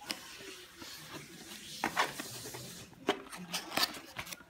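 Cardboard packaging and paper booklets being handled: rustling and scraping, with a few sharp taps and knocks about two seconds in and again around three to four seconds in.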